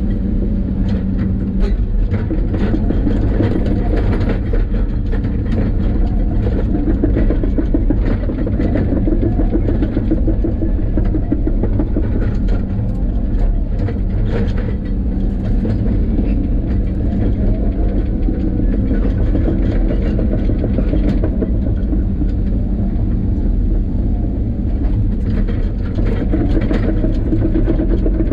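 Steady low rumble of a moving vehicle, running on without a break.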